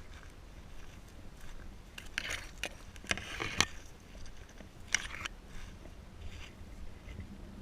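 A few irregular crunches and scrapes of footsteps on a dirt trail, the loudest about three and a half seconds in.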